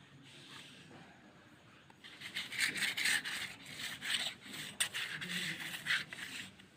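A painting tool scrubbing and scratching across paper in quick, rough, repeated strokes, starting about two seconds in.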